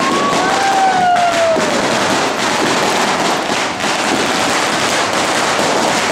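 Fireworks and firecrackers going off in a dense, continuous crackle, with a brief whistle falling in pitch about half a second in.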